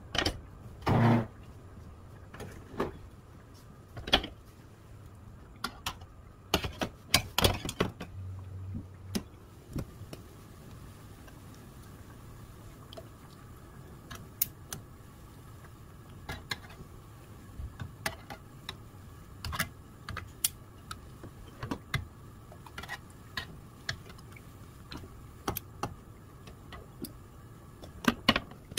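Scattered clicks and light knocks of kitchen utensils, metal tongs tapping a frying pan as whole squid are turned in water, over a faint steady hum. A louder clatter comes about a second in, and a quick run of knocks around seven seconds in.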